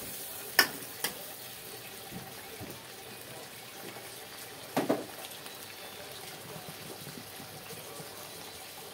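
Metal spatula clinking against a wok twice in the first second, then sliced bitter gourd simmering and sizzling in a little liquid with a steady hiss. There is a single louder knock about five seconds in.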